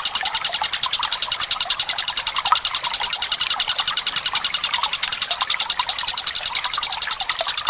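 Tengkek buto kingfisher calling in a fast, even, unbroken rattling trill, over trickling water.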